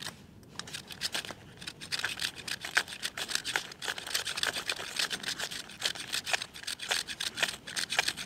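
Ferro rod being struck again and again with its scraper over birch bark and tinder, a fast run of short, sharp scrapes, several a second, to throw sparks and light the tinder.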